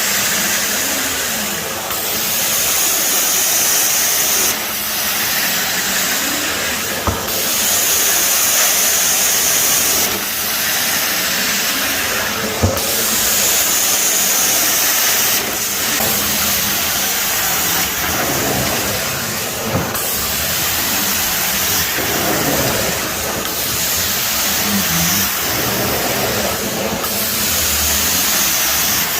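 Mytee Escape electric truckmount's carpet-cleaning wand working the carpet: a loud, steady suction hiss that changes tone every two to three seconds as the wand is stroked back and forth, with a brighter high hiss on alternate strokes. A couple of light knocks are heard along the way.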